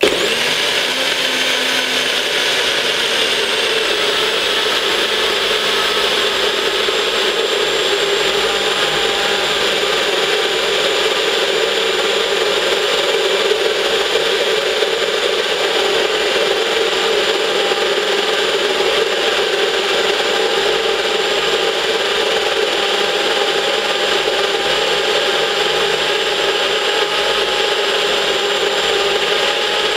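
NutriBullet blender motor running steadily, its blade blending ice, blueberries, banana and water into a smoothie. It starts suddenly and keeps an even, high whine throughout, the pitch settling slightly in the first few seconds.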